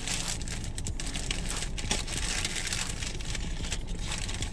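Paper sandwich wrapper crinkling and rustling in irregular crackles as a sub sandwich is unwrapped by hand.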